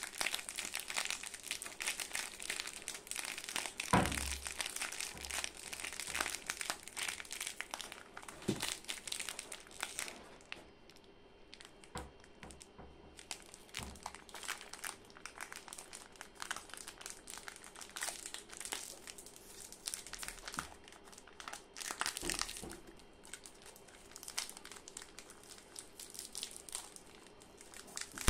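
Plastic wrapper of a Jim Jam biscuit packet crinkling as gloved hands handle and squeeze it. The crinkling is dense for about the first ten seconds, then sparser, with a few sharper knocks, the loudest about four seconds in. Near the end the wrapper is being pulled open.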